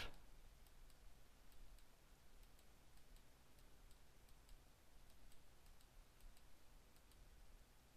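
Near silence with faint, irregular clicks, a computer mouse button being pressed and released to lay down brush strokes.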